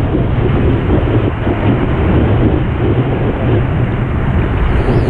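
Wind buffeting the microphone and whitewater rushing along a surfboard as it rides a wave, a loud, steady noise.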